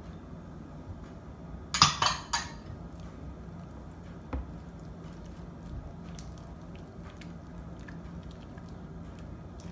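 Dishware clattering: three quick knocks about two seconds in, then one light knock, with faint sounds of mixing in a bowl.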